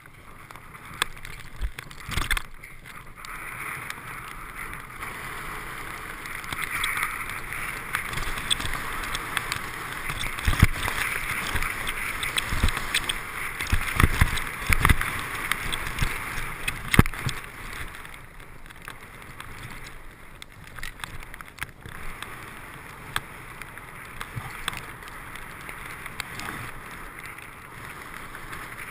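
Skis hissing steadily through fresh powder snow, with rushing air and scattered knocks as the skier runs downhill; the hiss swells in the middle of the run and eases toward the end.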